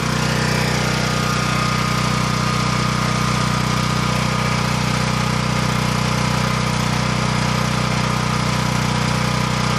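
Champion 9000-watt dual fuel generator's engine running steadily on gasoline under a space-heater load of about 1250 watts, holding an even speed without bogging down.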